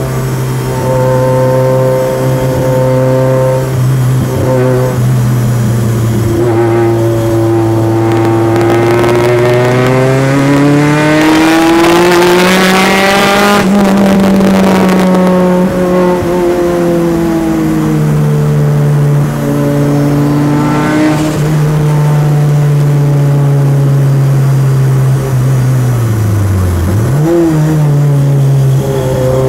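A turbocharged Peugeot 205's engine running hard on track, heard from inside the car. The revs climb steadily to a peak about halfway through, fall back and hold, then drop sharply and pick up again near the end.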